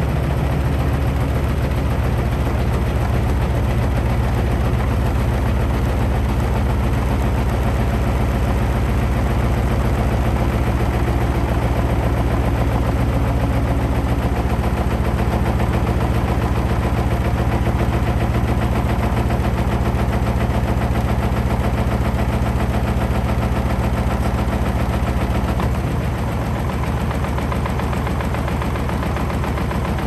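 Samsung front-loading washing machine on a fast spin with a heavy load of wet clothes: a steady low drum hum with a continuous rapid rattling and knocking of the shaking cabinet. It eases slightly near the end.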